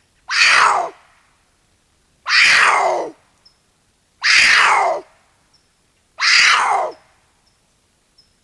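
Cougar (puma) screaming: four harsh screams about two seconds apart, each under a second long and falling in pitch.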